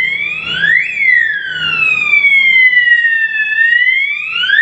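Electronic fire alarm siren (a 12–24 V DC sounder) wailing: its tone rises quickly to a peak about a second in, falls slowly for a couple of seconds, then climbs again near the end.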